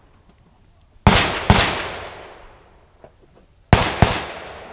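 Handgun firing in a USPSA stage: two quick pairs of pistol shots, the pairs about two seconds apart, each shot followed by a long fading echo.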